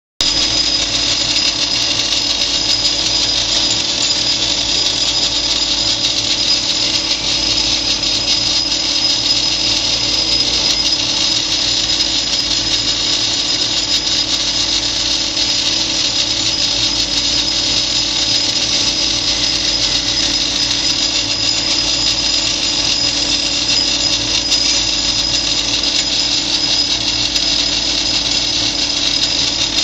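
Small belt-driven metal lathe running steadily under its electric motor, a constant high whine over a lower hum.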